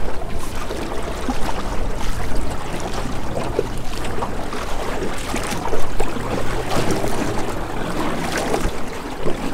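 Small aluminium jon boat being paddled by hand: water splashing and lapping at the hull with the paddle strokes, and wind rumbling on the microphone.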